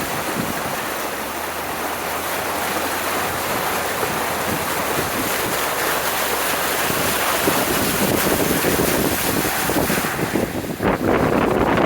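Truck on the move, a steady rushing noise with a low hum underneath in the first half, growing a little louder near the end.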